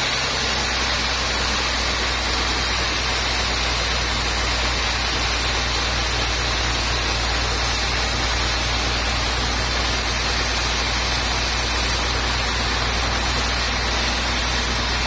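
Sawmill machinery running steadily: a constant low hum under an even, unbroken hiss that does not change.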